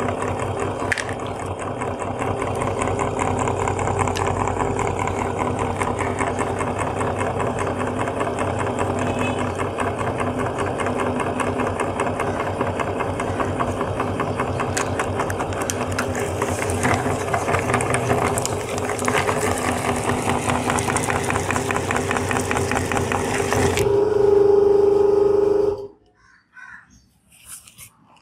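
Belt-driven meat grinder running steadily while toothpaste tubes are fed into the hopper and ground by its auger. Near the end its hum gets louder and steadier for about two seconds, then the sound stops abruptly, leaving only faint handling noises.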